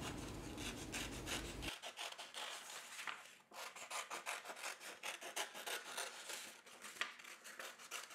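Scissors snipping through a sheet of coloured card, a quick, uneven run of small crisp cuts with the card rustling as it is turned. A low background hum stops abruptly about two seconds in.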